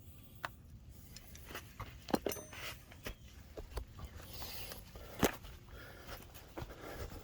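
Scattered light clicks and knocks of hand work on the car, with the loudest knock about five seconds in and a brief hiss shortly before it.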